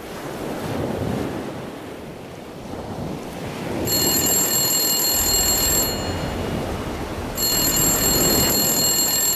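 Pay phone ringing: two long rings about two seconds each, roughly a second and a half apart, starting about four seconds in, over a steady background rush.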